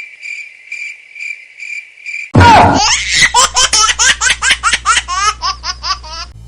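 Cricket chirping in short, even pulses, about four a second. Then, about two and a half seconds in, it is cut off by a sudden burst of loud laughter in quick high 'ha-ha' strokes that weaken near the end.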